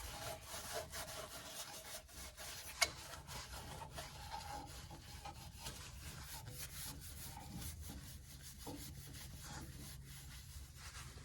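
Faint rubbing and scraping of hands and a rag on a newly fitted spin-on oil filter as it is wiped off and turned hand tight, with small ticks and one sharp click about three seconds in.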